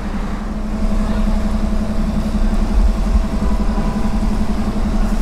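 Street traffic with a motor vehicle's engine running close by, a steady low hum and rumble.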